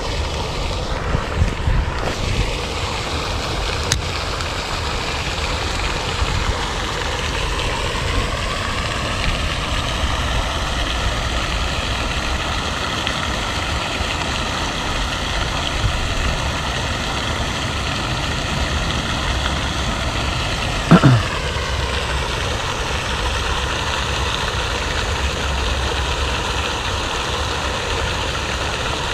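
Spinning reel whirring steadily as it is cranked on a slow lure retrieve, over the continuous splashing of a pond fountain. One brief sharp sound with a quickly falling pitch about two-thirds of the way through.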